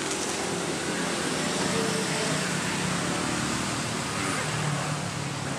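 Steady street traffic noise with faint voices in the background.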